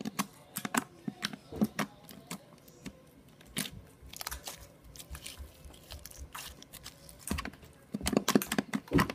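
Homemade glue-and-borax slime with plastic beads mixed in, squeezed and kneaded by hand, giving irregular wet clicks and pops from squashed air pockets, louder near the end.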